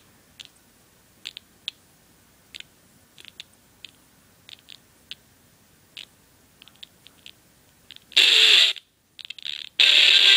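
Scattered light clicks, then a song with guitar starts playing through a small cone speaker driven by a homemade amplifier. The music cuts out for about a second and resumes near the end.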